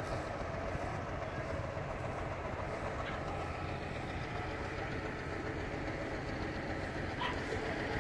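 A vintage tractor engine idling steadily in the background.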